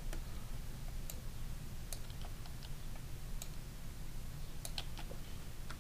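Scattered clicks from a computer mouse and keyboard, about half a dozen spread out with gaps between them, over a low steady hum.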